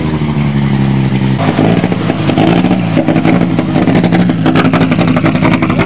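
Mitsubishi Lancer Evo 6 rally car's turbocharged four-cylinder engine running hard under load. The engine note changes abruptly about a second and a half in. After that a rapid, sharp crackling runs over the engine sound.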